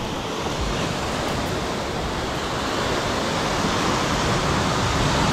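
Sea surf washing and churning against the rocks below, a steady rushing noise that grows a little louder toward the end.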